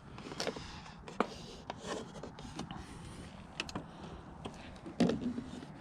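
A fiberglass tail-light overlay panel is handled and pressed against a car's rear for a test fit. It makes scattered light taps and rubbing, with a louder knock about five seconds in.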